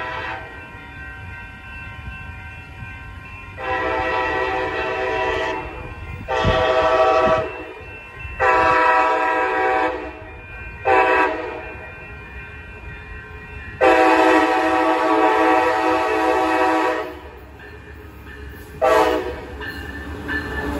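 Nathan K5LA five-chime air horn on an approaching Siemens Charger SC-44 locomotive, blown in a series of blasts: long ones at about 4, 6, 8 and 14 seconds in and short ones at about 11 and 19 seconds. A rumble from the train runs underneath.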